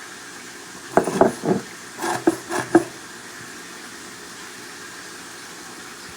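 Two short bursts of cookware clatter, knocks and scrapes of pots and utensils, about a second in and again about two seconds in. A steady low hiss of food cooking on the stove runs beneath.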